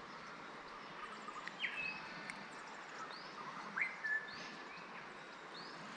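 Wild birds calling: several short rising chirps and a couple of longer whistled notes, over a faint steady background hiss.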